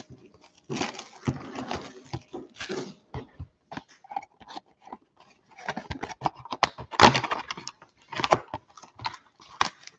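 Crinkling plastic wrap and rustling cardboard as a sealed box of Panini Contenders Optic football cards is unwrapped and opened, with the foil packs inside rustling. It is a run of short, irregular crackles, the sharpest about seven seconds in.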